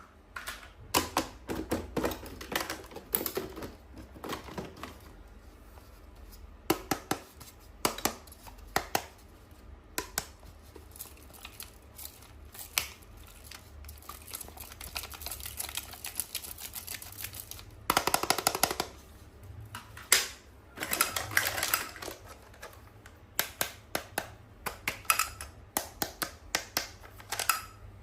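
Irregular clicks and taps of toys and their packaging being handled and unboxed, with a short rustling stretch about two-thirds of the way through.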